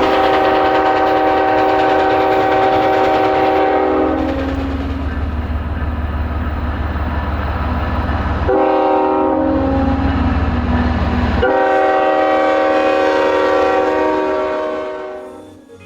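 Canadian National diesel locomotive's air horn sounding long blasts over the low rumble of the passing train, fading out near the end.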